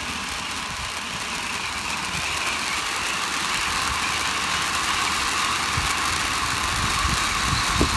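Two large firework fountains burning side by side, a steady hissing spray of sparks that grows slightly louder over the seconds.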